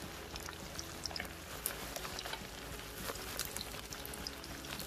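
Cornstarch-coated beef pieces deep-frying in hot oil in a pan: a steady sizzle with many scattered crackles and pops.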